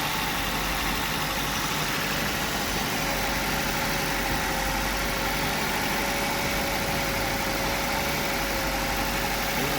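Maruti Suzuki K-series VVT petrol engine idling steadily and smoothly after a cylinder head and valve repair, with no misfire; a faint steady whine joins about three seconds in.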